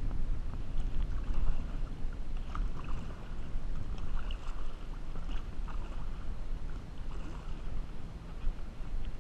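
Kayak paddling: the paddle blade dipping and splashing, with water dripping, over a steady low rumble of wind on the microphone.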